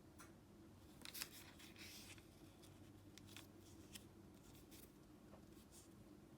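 Faint rustling and crinkling of origami paper being folded and creased by hand, busiest about a second in, then a few light ticks, over a low steady hum.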